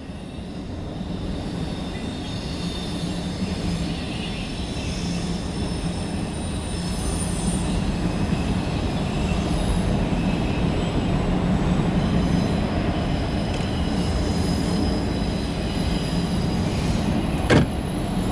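Empty autorack freight cars of a CSX train rolling past, a steady rumble of steel wheels on rail that grows slightly louder. A single sharp knock comes near the end.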